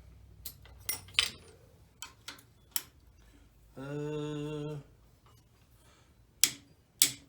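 Scattered sharp clicks and taps of hand tools on metal as a wrench is fitted to a 10 mm bolt on the shift shaft of an ATV engine. A brief steady hum is heard near the middle.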